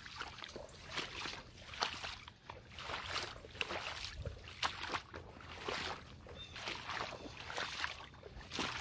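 Boots sloshing through shallow standing water, a step about once a second.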